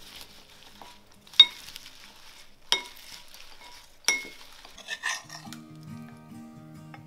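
Three sharp clinks of utensils against a glass bowl, each ringing briefly, over a soft rustling hiss from tossing the salad leaves. A few smaller clinks follow, and soft music with a repeating low pattern comes in about five seconds in.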